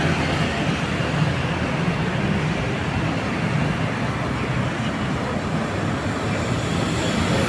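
Roadside traffic: steady engine and tyre noise of passing vehicles, with no horn sounding.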